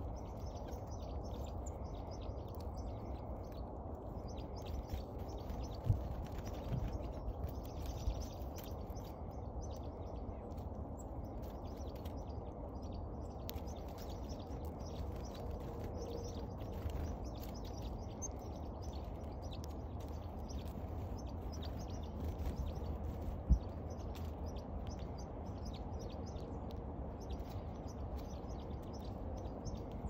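Steady low wind rumble with faint chirps of small birds and many short ticks of a downy woodpecker pecking at seed on a bare hand. Two sharper knocks stand out, about six seconds in and again late on.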